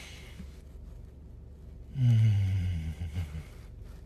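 A man's deep, wordless, appreciative "mmm" about two seconds in, falling slowly in pitch and lasting about a second and a half. Under it is the low, steady rumble of a car's cabin.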